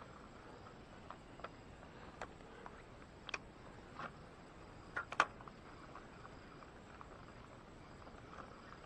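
Spinning fishing reel and rod being handled for a cast: a handful of scattered sharp clicks and ticks, the loudest pair about five seconds in, over a faint outdoor hiss.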